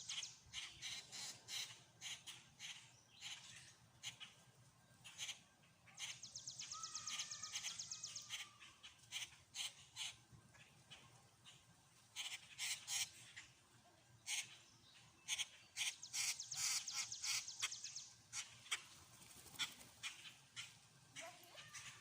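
Small songbirds chirping in a busy run of short, high calls, with a rapid high trill twice, about seven and again about seventeen seconds in.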